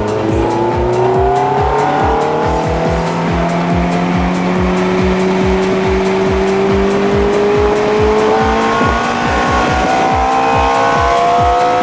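Ferrari F430's V8 engine held at high revs, its pitch rising slowly and steadily, over music with a steady beat.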